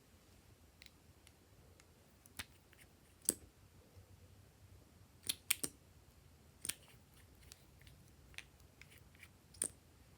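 Glossy slime being handled and pressed, giving irregular sharp clicks and pops, about seven louder ones with fainter ones between.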